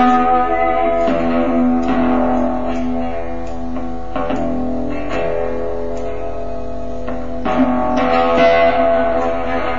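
Guitar music: plucked notes ringing over a held low note, with new notes struck every second or so.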